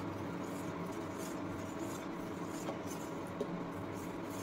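Metal spoon stirring hot milk in an aluminium pan, rubbing and lightly scraping against the pan, over a steady low hum. The milk is being curdled with vinegar to make chhena.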